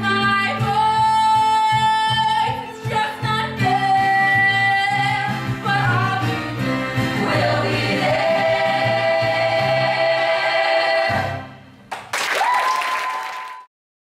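A small group of teenage voices singing a musical-theatre number over accompaniment, with long held notes. The music dips about eleven seconds in, then a final held note cuts off abruptly just before the end.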